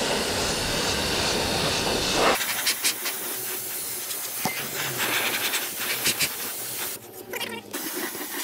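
Compressed-air paint spray gun hissing as it sprays touch-up paint into the wheel arch. The hiss breaks off briefly near the end, then starts again.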